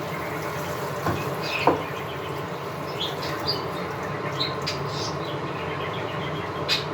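Kitchen work sounds: light clinks and taps of utensils over a steady background noise, with a sharper click about two seconds in and another near the end.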